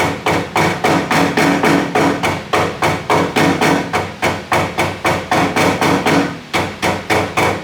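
Rubber mallet lightly tapping new rubber weatherstrip down onto a 1973 VW Thing's steel door edge, in a steady run of taps about three a second.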